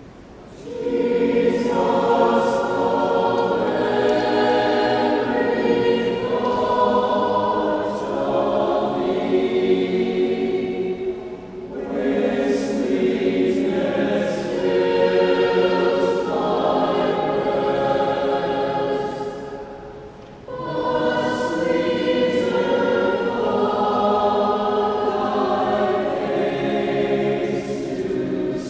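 A choir singing a sacred piece in long phrases, with brief breaks about eleven and twenty seconds in.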